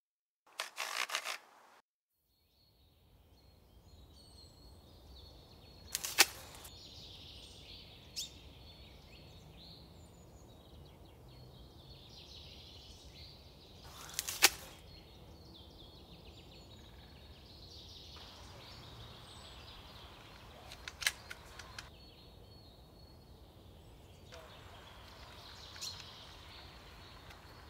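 Fiskars UPX82 tree pruner's cutting head clicking in a short rapid run as it is turned to a new cutting angle, then the anvil blade closing with a few sharp snaps as it cuts branches. Birds chirp throughout.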